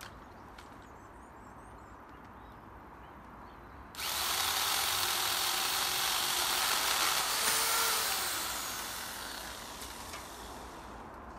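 MacAllister MPS750S-2 electric pole saw with a 20 cm Oregon bar and chain, switched on suddenly about four seconds in and running for about four seconds as it cuts into an oak branch, then winding down over a couple of seconds.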